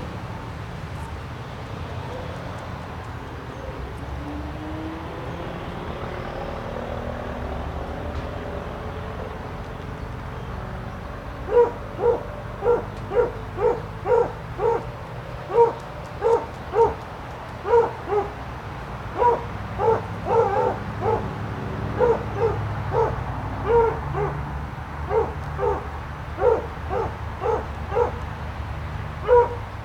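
A dog barking over and over, short and fairly high-pitched, about one to two barks a second. The barking starts about eleven seconds in and pauses briefly a couple of times, over a steady low rumble.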